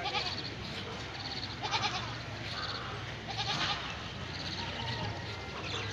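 Goats bleating: several short, quavering calls over a steady low hum.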